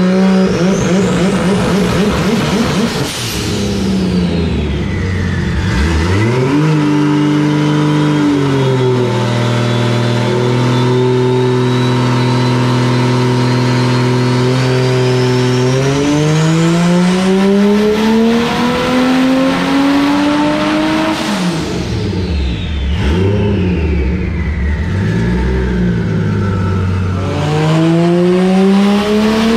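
Toyota Supra JZA80's single-turbo 2JZ straight-six running hard on a chassis dyno at about 34 psi of boost. It climbs in revs under load and drops back about three seconds in, holds a steady lower speed, climbs again, drops, then starts another climb near the end. A high turbo whistle falls away each time the revs drop.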